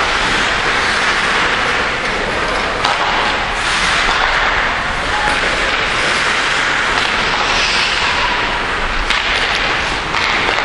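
Steady ice-rink noise during hockey play, with skates scraping the ice and a few faint knocks of sticks or puck.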